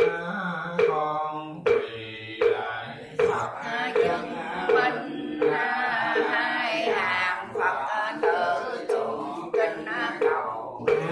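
Buddhist prayers being chanted by voices in a steady mantra-like line, kept in time by a regular knocking beat that comes slightly faster in the second half.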